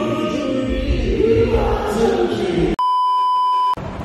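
Gospel choir singing with instrumental backing, cut off a little under three seconds in by a steady one-second electronic beep, followed by a low background hiss.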